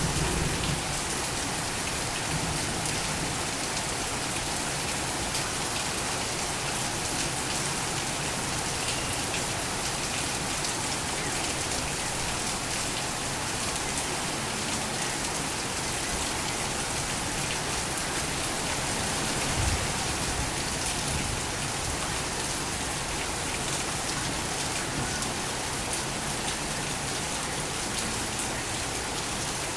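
Torrential rain falling steadily, a dense even patter. A brief low thud comes about two-thirds of the way through.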